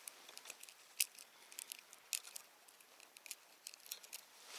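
Faint, irregular light clicks and ticks, a dozen or so at uneven spacing, the sharpest about a second in and again near two seconds.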